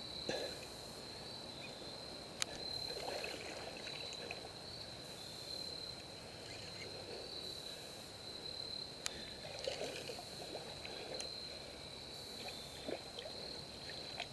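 A steady high chorus of crickets with faint splashing and sloshing of water as a hooked largemouth bass is brought in. Two sharp clicks come a few seconds in and again about two-thirds of the way through.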